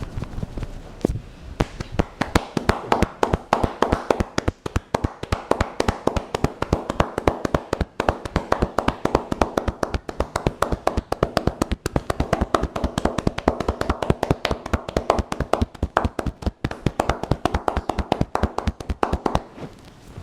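Hands striking the head in fast, rhythmic massage percussion, several slaps or claps a second. It starts about a second and a half in and stops shortly before the end.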